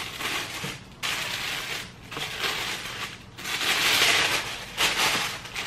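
Tissue paper rustling and crinkling as it is lifted and pulled out of a gift box, in irregular bursts, loudest about four seconds in.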